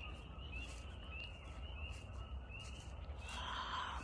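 A bird calling with a steady run of short, high, upward-sliding chirps, about three a second. A brief burst of rustling noise comes near the end.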